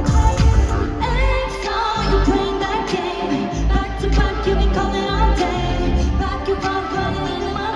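Live pop music with female group vocals singing over a heavy bass beat, played through a concert sound system.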